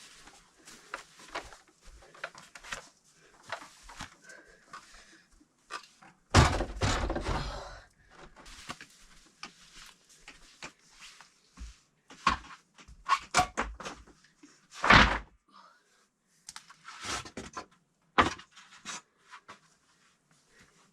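Scattered wooden knocks and thuds of tongue-and-groove boards being handled and set down, with one longer, louder clattering scrape about six seconds in.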